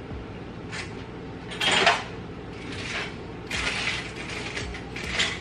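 Several irregular short scraping and rasping strokes from handling in the kitchen, the loudest about two seconds in, over a steady low hum.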